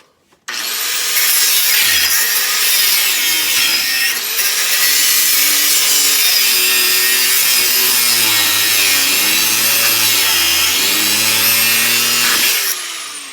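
Electric power tool grinding or cutting the steel khopesh blade. It starts about half a second in and runs loud and steady, with a motor pitch that wavers under load. Near the end it shuts off and spins down.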